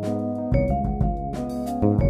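Instrumental background music with sustained pitched notes over a steady beat.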